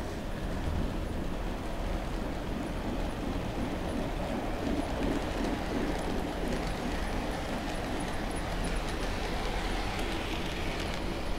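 O-gauge model freight train rolling past on three-rail track: a steady rumble of the cars' wheels on the rails, with a few faint clicks.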